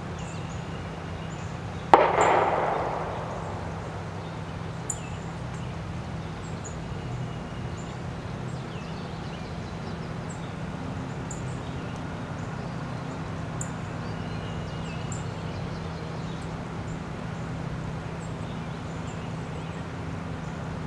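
Outdoor ambience: a steady low hum with faint, scattered high chirps of small birds. About two seconds in, one sharp, loud bang rings off over a second or so, with a small click a few seconds later.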